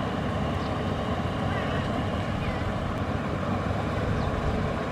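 Tractor engine running steadily as it drags a levelling board through a flooded rice paddy, an even, unbroken drone.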